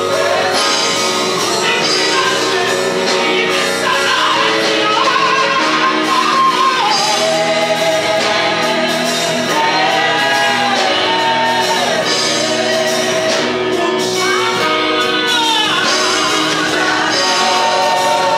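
Gospel music with singing, loud and steady, with long sung notes that slide up and down.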